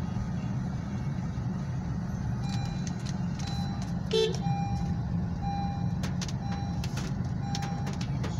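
Car interior on the move: a steady low rumble of engine and tyres on a wet road. About two and a half seconds in, short beeps and sharp clicks start, roughly one a second, with one louder sound near the middle.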